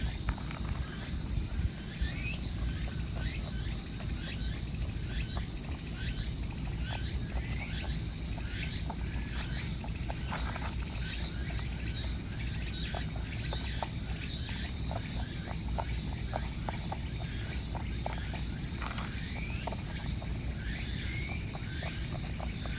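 Outdoor ambience: a steady high-pitched insect chorus with frequent short bird chirps over it and a low rumble underneath.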